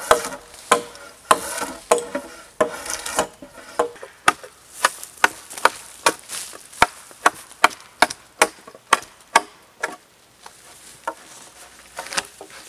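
Drawknife pulled along a freshly cut pole to peel off its bark, a quick run of short scrapes and snaps, about two or three strokes a second, thinning out near the end.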